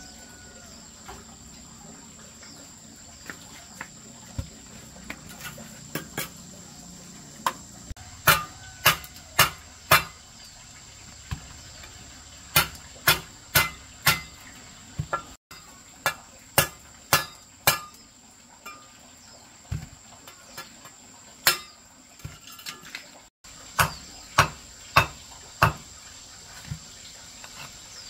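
Steel mason's trowel striking a concrete cinder block to chip and break it along a scored line: sharp metallic taps, some single and some in quick runs of three or four.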